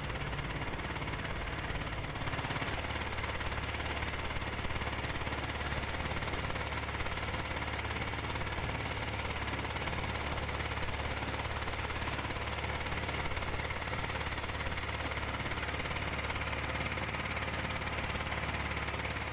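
A small engine running steadily at an even speed, a constant low chugging drone.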